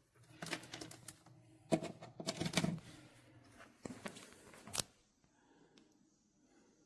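Several short clusters of clicks and knocks, like hard objects being handled and tapped, with a quiet stretch in the last couple of seconds.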